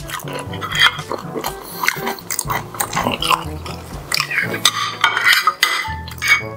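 Close-miked eating sounds: chewing and mouth smacking, with spoons and forks clicking and scraping on ceramic plates, over background music.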